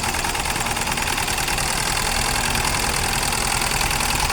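Car engine idling steadily. It has a rough idle, which the mechanic traces to a faulty fuel injector.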